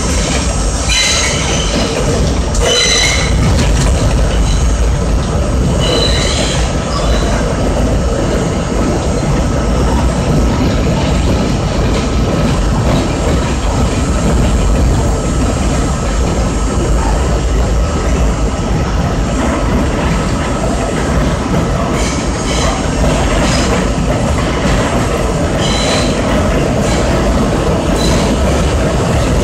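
R32 subway train running through a tunnel, heard from inside the car: a loud, steady rumble of wheels on rail. Short high-pitched wheel squeals come several times in the first few seconds and again near the end.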